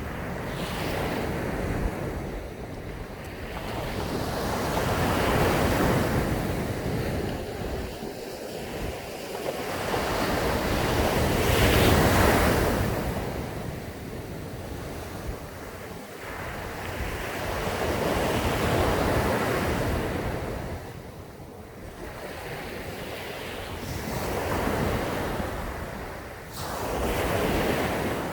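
Sea waves breaking and washing up a sandy beach, the surf swelling and falling back about every five to seven seconds, the biggest wave about twelve seconds in. Wind rumbles on the microphone underneath.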